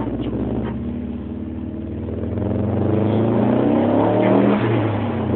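Subaru Impreza's flat-four engine heard from inside the cabin, running and then accelerating hard from about two seconds in, its pitch climbing to a peak near the end before easing off.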